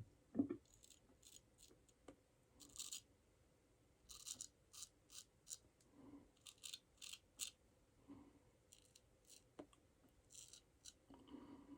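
Faint short scraping strokes of a straight razor cutting through lathered stubble, a dozen or so in irregular runs, with one low thump about half a second in.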